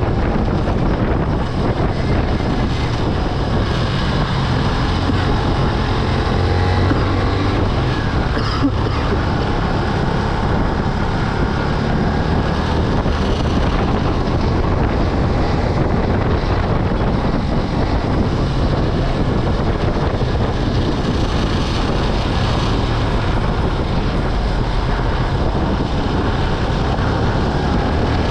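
Yamaha Byson FZ16's single-cylinder four-stroke engine running through its stock exhaust, with heavy wind noise on the microphone. The engine note changes pitch slightly now and then.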